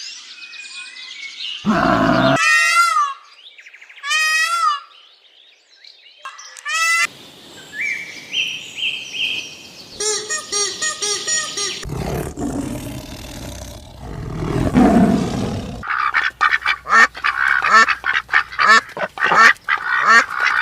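A string of short animal calls from different animals cut one after another, most of them bird calls. In the last few seconds comes a rapid run of repeated calls.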